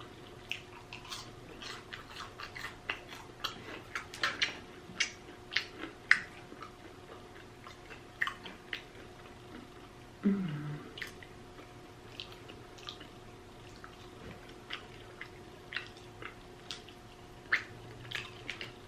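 Close-up mouth sounds of a person eating fried food: wet chewing and lip smacking, a quick run of clicks for the first several seconds, then sparser. About ten seconds in comes a short hummed 'mm' that falls in pitch.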